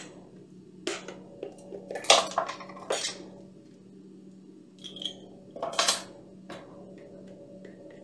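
Kitchen utensil clatter: a metal measuring spoon and a spice jar knocking against a glass mixing bowl and the counter. There are a handful of separate short clinks, most of them in the first three seconds and again about six seconds in.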